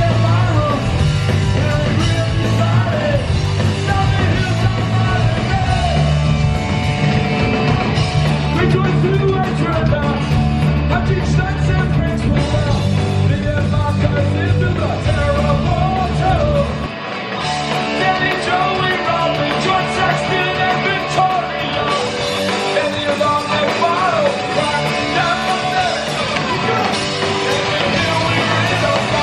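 Punk rock band playing live: electric guitars, bass and drums with a singer shouting the vocals. About halfway through the bass and drums drop away for a few seconds, leaving guitar and voice, before the band comes back in.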